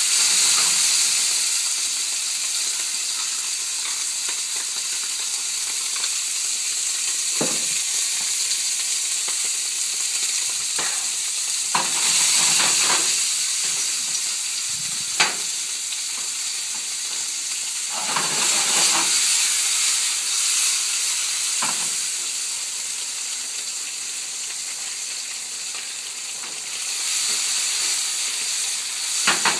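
Food frying in a hot pan: a steady sizzling hiss, with now and then a short knock or scrape of a utensil in the pan.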